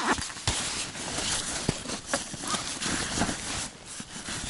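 Fabric and nylon rustling as a padded rod case and a backpack are handled, with a few light knocks and clicks.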